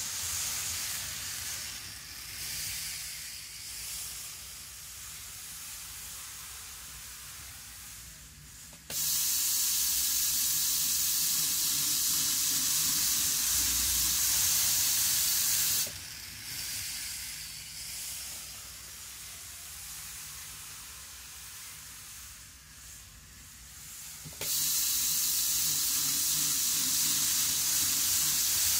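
Micro Ace N-gauge model train (JR Kyushu 783 series) running on sectional track: a steady high hiss of motor and wheels with a low hum beneath, which turns abruptly much louder twice, about nine seconds in for some seven seconds and again near the end. The owner judges that a slight jerkiness remains in its running even after cleaning.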